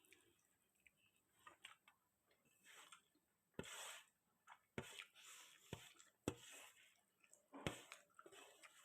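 Quiet eating sounds: soft chewing with a handful of short, sharp clicks.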